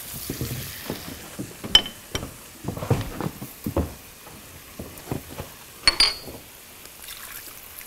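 Spatulas stirring and knocking in frying pans, with scattered light knocks and two bright, ringing clinks of kitchen utensils, about two seconds in and again about six seconds in.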